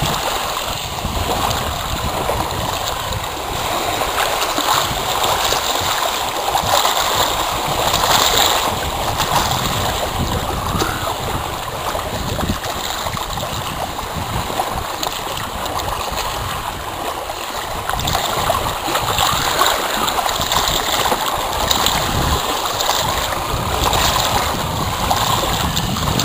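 Gusty wind buffeting the microphone over choppy lake water, with small waves splashing and lapping continuously.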